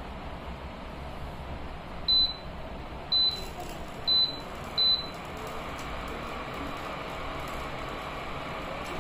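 Induction cooktop's touch-panel buttons beeping four times as they are pressed: short high beeps about a second apart. A steady hum runs underneath.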